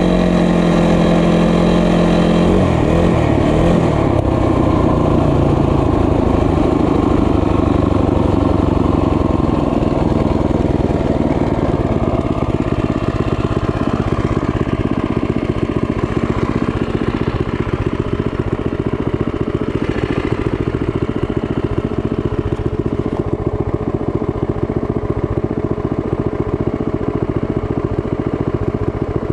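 Small motorbike engine running while riding. It holds a steady note at first, drops in pitch about three seconds in, and carries on at a lower, rougher note.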